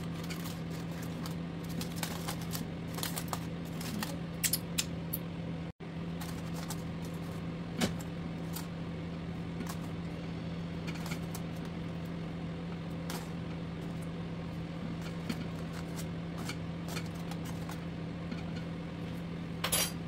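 Aluminium foil crinkling and crackling as a foil parcel holding a grilled mackerel is opened out, with a few light clicks later as it is handled, over a steady low hum.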